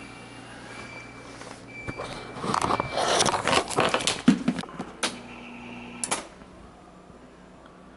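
Short, evenly repeated high electronic beeps, then a couple of seconds of loud clattering and rattling handling noise. After that comes a brief steady low hum of about a second, which starts and stops with a click.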